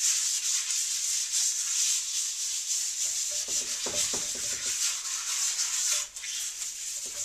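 Half a lime scrubbing coarse kosher salt across a wooden chopping block: a steady gritty scratching of salt crystals on the wood, stroke after stroke, with a brief let-up about six seconds in.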